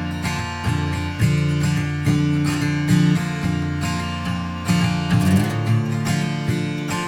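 Music: strummed acoustic guitar playing a song's instrumental intro, with a steady rhythm.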